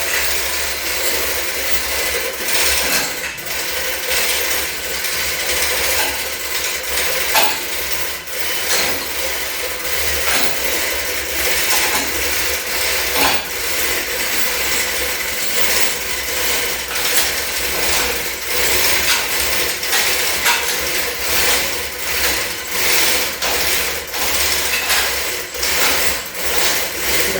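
Continuous clatter of hand tools and ratchets working on a car, with many quick clicks and knocks over a steady low hum. It cuts off abruptly at the end.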